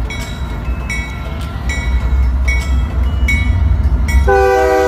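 Union Pacific GE diesel locomotives passing close with a heavy low rumble, a bell dinging a little more than once a second. About four seconds in, the lead locomotive's multi-chime air horn starts a long, steady chord blast.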